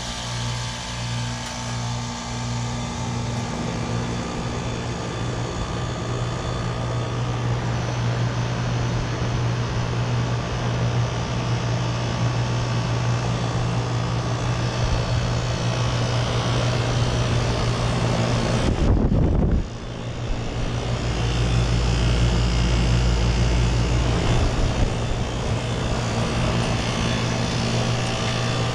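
2012 Lennox Merit heat pump outdoor unit running through a defrost cycle with a steady hum. It dips briefly about two-thirds of the way through, then runs on with a deeper rumble.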